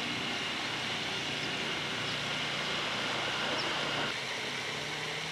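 Steady, even hiss of a pond's spray fountain with a low hum beneath it; the sound steps down slightly about four seconds in.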